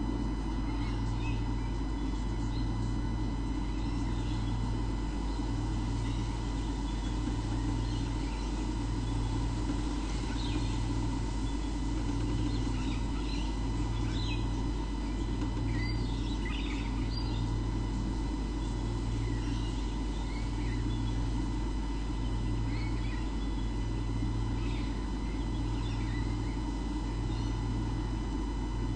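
Steady electrical hum with a low throb pulsing about every two seconds and a thin steady whine above it, with faint short bird chirps scattered through the middle.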